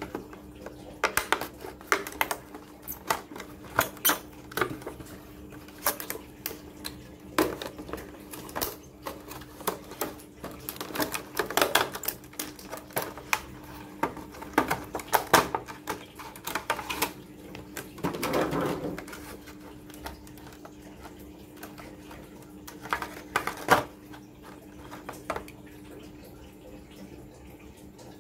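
Clear plastic blister packaging of a die-cast toy car pack clicking and crackling in quick irregular taps as it is handled and opened by hand, with a longer crinkling rustle about two-thirds of the way through.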